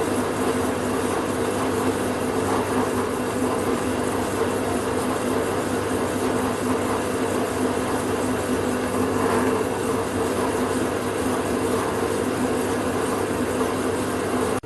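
Electric drill motor running steadily with a constant hum while boring a hole for a split pin.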